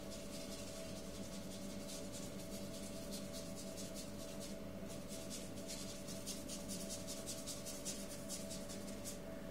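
Paintbrush scrubbing back and forth on paper in quick strokes, several a second, stopping shortly before the end. A steady low hum runs underneath.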